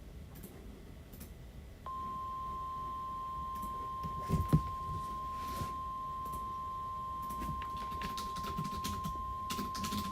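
NOAA Weather Radio 1050 Hz warning alarm tone: one steady high-pitched tone that starts about two seconds in, announcing an incoming warning. Faint clicks underneath, with one sharp knock about four and a half seconds in.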